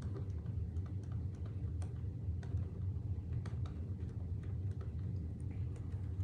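Irregular light clicks, a few a second, like typing on a keyboard, over a steady low hum.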